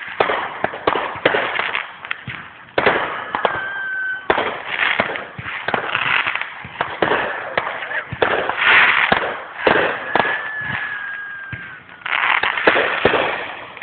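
Aerial fireworks display: a rapid, irregular series of shell bursts with bangs and crackling pops, and a thin whistling tone that falls slightly, heard twice.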